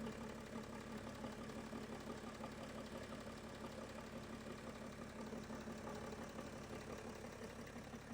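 BMW M57TU2 3.0-litre straight-six diesel engine idling steadily with an even diesel clatter.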